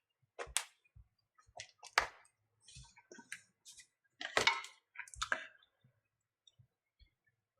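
Scattered clicks, taps and scrapes as a charging cable and its plug are handled and pushed into a tablet's charging port. The two sharpest clicks come about two and four and a half seconds in.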